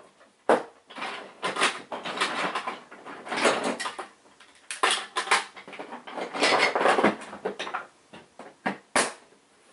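Rummaging: a sharp knock about half a second in, then stretches of clattering and rustling as objects are moved about, with a few more knocks near the end.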